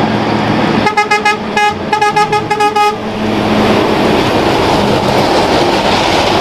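Heavy truck sounding its horn in a quick run of short toots, then the steady rush of its engine and tyres as it drives past.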